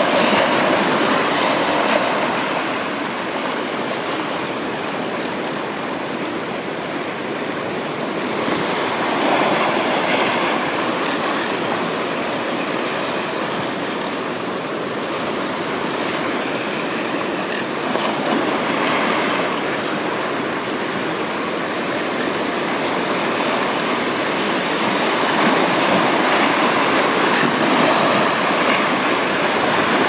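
Baltic Sea surf breaking and washing over shoreline rocks: a steady rushing that swells and eases every eight to ten seconds as each set of waves comes in.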